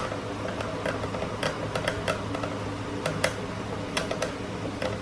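Hand grater scraping a wedge of Parmesan cheese: a run of short, irregular strokes, roughly two a second.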